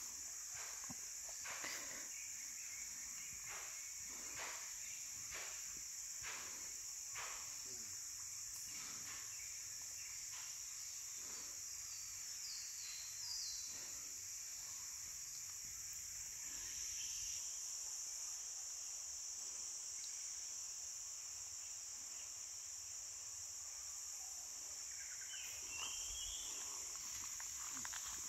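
Steady high-pitched chorus of insects. It is joined by scattered sharp clicks and knocks in the first several seconds and a few brief chirps later on.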